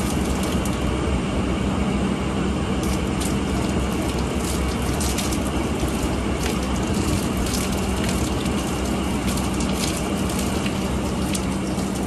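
Water pouring out of the open heating-element port of a solar water heater tank and splashing onto the roof: a steady rushing noise with a low hum underneath.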